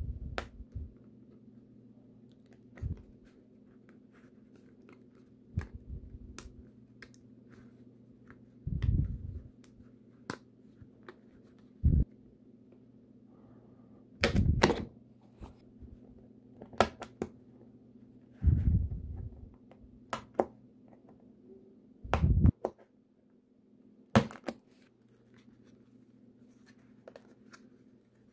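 Utility knife blade cutting the small tabs that hold laser-cut plywood model parts in their sheet: scattered sharp clicks and cracks, with soft low thumps as the sheet is handled on a padded cloth. A faint steady low hum runs underneath.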